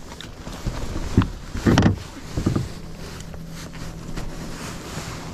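Handling of a freshly caught perch on a kayak: a series of knocks and thumps as the fish is held and laid on a measuring board, the loudest about two seconds in. Wind on the microphone throughout, and a low steady hum sets in about halfway through.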